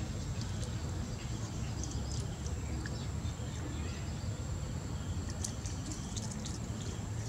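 Outdoor ambience: a steady low rumble with a thin, steady high-pitched whine and scattered faint, short high chirps, some clustered about five to six seconds in.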